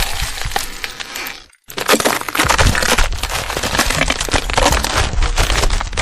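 Cracking, breaking sound effect: a dense run of crackles and snaps. It cuts out briefly about a second and a half in, then carries on.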